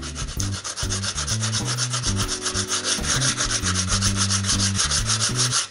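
Sandpaper on a hand sanding block rubbed back and forth along a wooden crib rail in rapid, even strokes, smoothing the sawn wood. The sanding stops just before the end.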